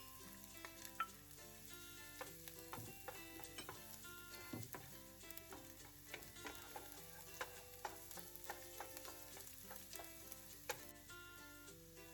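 Food sizzling in a frying pan while it is stirred, with short clicks and scrapes of the utensil against the pan scattered throughout, under background music.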